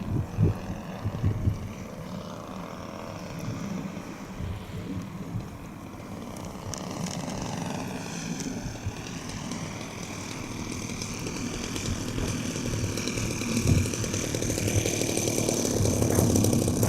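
Acrowot XL RC aerobatic plane flying, its motor and propeller giving a high whine that shifts in pitch as it passes and grows louder near the end. Wind gusts on the microphone in the first couple of seconds.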